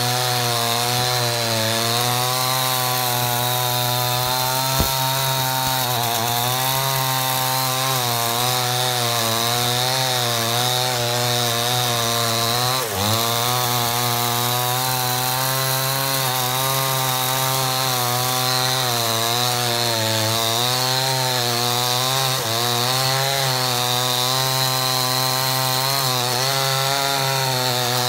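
Two-stroke chainsaw running at full throttle while cutting through a thick tree trunk, its pitch wavering as the chain bites into the wood, with a brief bog-down about halfway through. A single sharp click about five seconds in.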